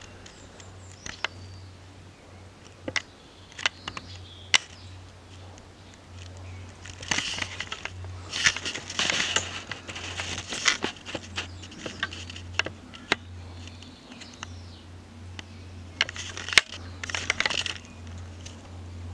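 Someone moving about among piled metal and glass street lanterns: scattered sharp clicks and knocks, and two longer stretches of crunching, rustling noise about seven and sixteen seconds in, over a steady low hum.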